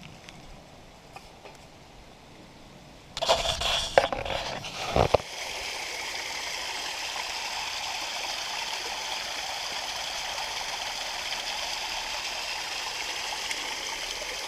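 Spring-fed stream and small waterfall rushing in a steady, even hiss that starts about five seconds in. Before it come a couple of seconds of loud bumps and rustling, and the first few seconds are quiet.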